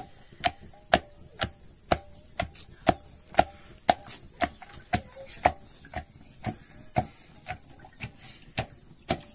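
Wooden stick churning yogurt into buttermilk in a tall metal cup, knocking against the cup about twice a second in an even rhythm, each knock with a short metallic ring.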